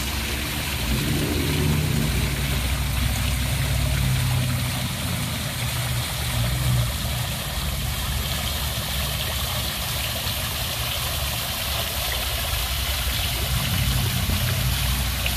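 Two-tier plaza fountain's water falling and splashing steadily into its basin. A low rumble runs underneath.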